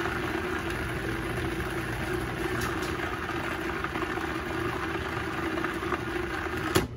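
Cuisinart food processor motor running steadily with a held hum as it blends a thick cream cheese, heavy cream and powdered sugar filling; it switches off with a click near the end.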